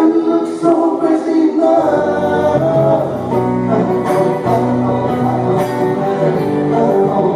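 Live singing over guitar accompaniment, with low bass notes coming in about two seconds in.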